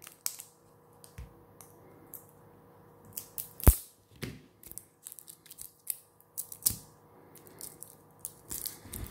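Scissors snipping and fingers picking at the plastic shrink-wrap seal on a liquid foundation bottle's cap: scattered small clicks and crinkles, with one sharp, loud click a little over three and a half seconds in.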